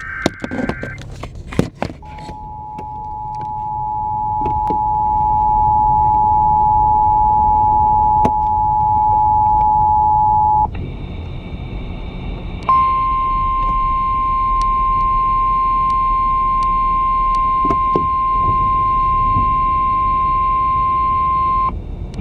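Emergency Alert System tornado-warning broadcast. It opens with the tail of the warbling digital header burst, then the steady two-tone attention signal, growing louder over its first few seconds and held about eight seconds. After a brief gap comes a single steady higher alert tone for about nine seconds, which cuts off just before the voice message.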